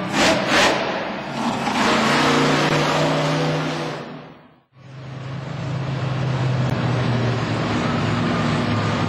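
Monster truck engines running loud under racing throttle, with a couple of sharp surges in the first second, fading out to silence a little before the halfway point. Then monster truck engines rumbling steadily at a low pitch, sitting on the track for the next round.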